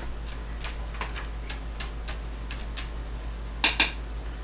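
A run of light, sharp clicks and ticks, about three a second, then two louder clicks in quick succession near the end, over a steady low hum.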